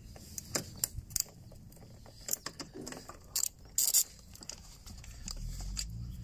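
A hand ratchet with a 13 mm socket on an extension working the strut-top nuts of a BMW E60's front strut tower. It makes scattered, irregular metallic clicks and clinks, loudest in a quick cluster about four seconds in.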